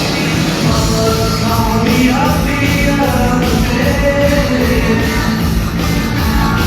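Rock and roll music played loud over a sound system, with a steady beat and what may be a sung or lead melody line.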